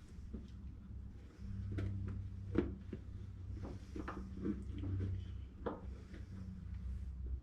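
Scattered knocks and clicks of a plastic AC charging port being handled and pushed into a hole in a thin aluminum truck cap wall, with one sharper knock about two and a half seconds in. A low steady hum comes in about a second and a half in.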